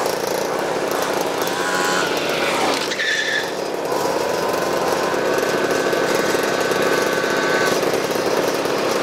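Small two-stroke moped engines running steadily.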